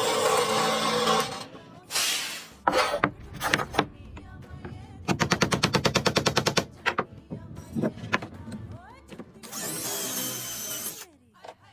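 Workshop tool noises: a power tool running until about a second in, a few sharp knocks, then a rapid, even rattle of about ten strikes a second lasting over a second, and another burst of tool noise near the end.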